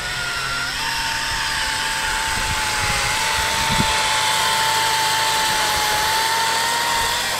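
Makita chainsaw held at full speed, cutting through a thin log with a steady whine; the pitch dips slightly about three seconds in as the chain bites.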